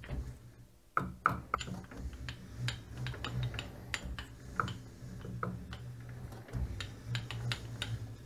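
Light, irregular taps of a soft-faced hammer on the compound slide of a Weiler Primus toolroom lathe, nudging it into line with the machine axis against a mildly tightened screw, a couple of taps a second. A steady low hum runs underneath.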